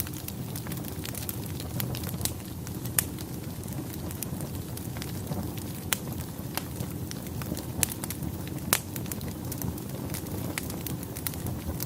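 Fire burning in a fireplace: a steady low rush of flames with irregular sharp crackles and pops, a couple of them louder, about 3 and 9 seconds in.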